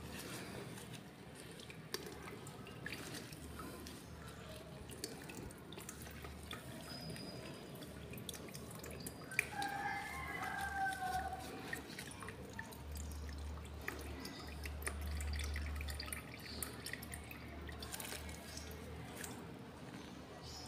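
Liquid dripping and trickling from a wad of wet filter cotton wool as gloved hands squeeze it out over a plastic colander: scattered small drips and squelches.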